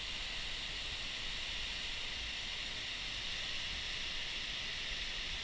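A waterfall about 25–30 feet high pouring over a rock ledge into a pool: a steady rush of falling water, strongest in the high hiss range, with no change in level.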